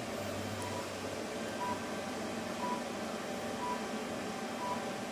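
A short electronic beep repeating about once a second, each beep the same single pitch, over a steady background hum.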